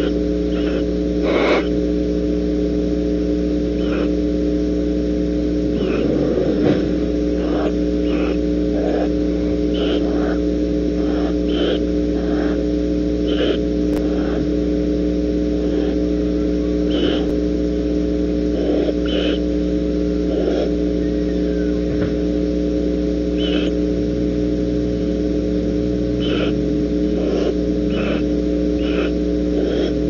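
Steady electrical hum from a nest-box camera's audio line, with short faint scratchy sounds scattered through it, roughly one every second or two.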